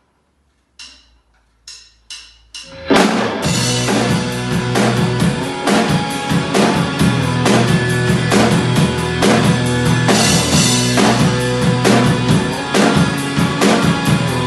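An acoustic drum kit played live along with a drumless rock backing track: a steady beat of kick drum, snare and cymbals over the track's bass and guitars. Four sharp clicks lead in, and the track and drums come in together about three seconds in.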